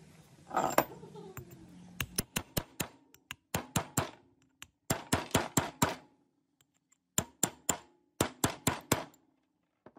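Hammer taps on a steel pipe used as a drift, driving the hammer drill's helical gear down onto its shaft in the aluminium gear housing. The taps come in quick bursts of three to six, each with a short metallic ring, after a brief clatter at the start.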